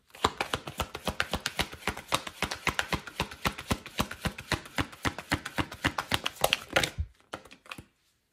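A deck of cards being shuffled by hand: a quick, steady run of card-on-card slaps, about eight to ten a second, stopping about a second before the end.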